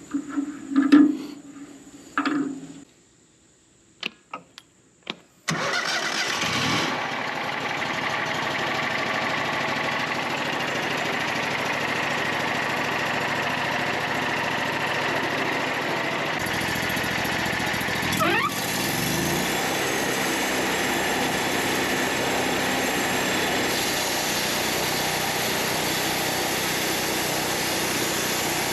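A few knocks and clatter, then about five and a half seconds in the Wood-Mizer LT40 portable sawmill's engine starts suddenly and runs steadily. A brief rising tone comes partway through.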